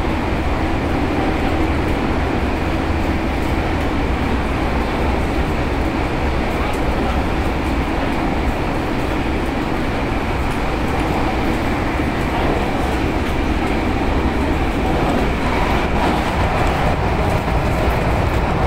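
Passenger train running, heard from inside the carriage: a steady, deep rumble of wheels on the track with an even running noise over it.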